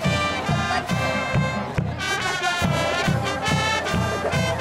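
Marching band playing: saxophones and brass holding chords over a steady bass-drum beat, with a short break in the horns about two seconds in.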